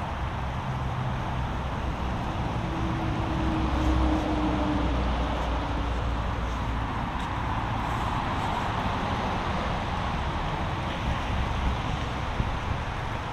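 Steady road traffic noise from a nearby main road, swelling as a heavier vehicle passes about three to five seconds in.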